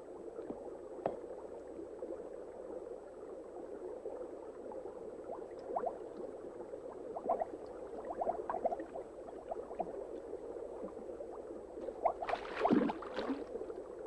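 Stream water bubbling and gurgling, heard underwater, with clusters of short rising bubble sounds about halfway through and a brighter burst of bubbling near the end.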